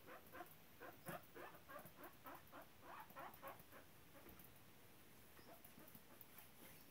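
Faint, quick pattering of a pet rat's small feet scurrying across the hutch floor, about five or six light taps a second. The taps thin out to a few faint ticks about halfway through.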